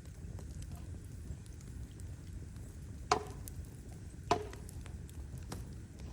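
Wood fire crackling over a low steady rumble, with two sharp loud pops about three and four seconds in and fainter ticks between.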